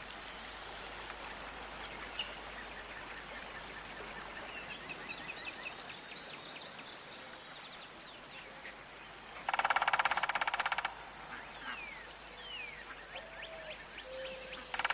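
Birds chirping and whistling in short repeated notes and glides. Twice, about halfway through and again at the end, a loud rapid rattle lasts about a second.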